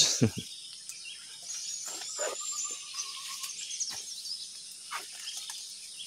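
Tropical forest birds chirping, with one long, slightly falling whistled note about two seconds in, over a steady high insect drone.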